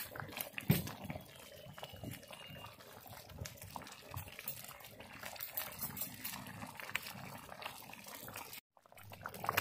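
Thick rice-flour porridge with leafy greens bubbling in a pot as it boils, with small irregular pops and plops.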